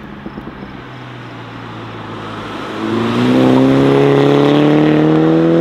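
MINI Cooper John Cooper Works with its turbocharged four-cylinder engine accelerating past: a faint car noise at first, then from about three seconds in a loud engine note that climbs steadily in pitch as the car goes by, cut off abruptly at the end.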